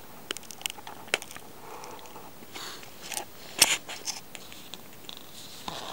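Glossy magazine pages being handled: paper crackling and rustling with scattered sharp clicks, the loudest a little past halfway through.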